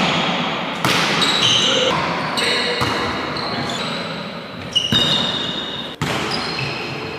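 Volleyballs being struck in a reverberant sports hall during a serve-reception drill: about four sharp slaps of the ball, with short high squeaks of sneakers on the court floor and players' voices in the background.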